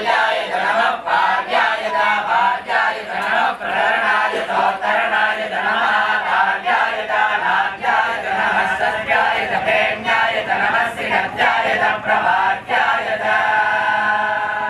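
A group of men and boys chanting Vedic hymns together (Veda ghosham), in steady recitation with short breaks, settling into one long held note near the end.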